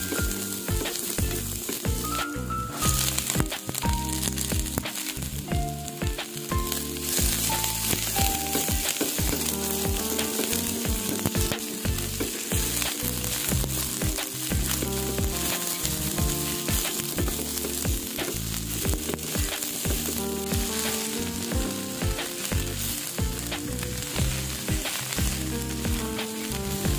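Food frying in hot oil in a pan, a steady sizzle, with background music over it.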